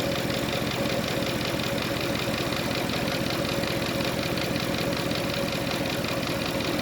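Mercedes-AMG car engine idling steadily, with the air conditioning switched on at full blast.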